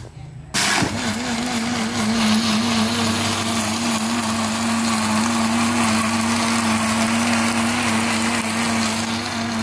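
Electric blender motor starting about half a second in and running steadily, blending falsa berries, sugar and salt in cold water into a liquid.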